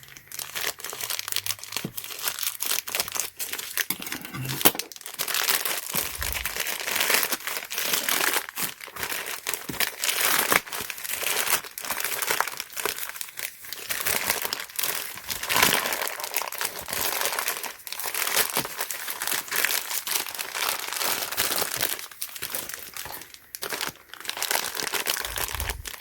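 Packaging crinkling and rustling in continuous irregular handling as a lock-pick practice set is unwrapped.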